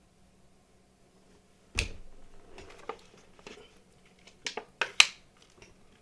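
A handful of sharp clicks close to the microphone in a small room. The first, about two seconds in, carries a low thump; a quick cluster of louder clicks follows near the end.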